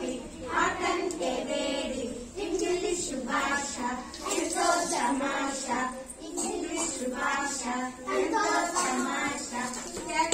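Young girls singing a song together in chorus, their voices going on in phrases with short breaks.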